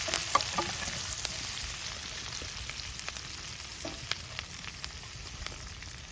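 Mushrooms frying in butter in a cast iron frying pan: a steady sizzle with scattered pops and crackles, getting slowly quieter.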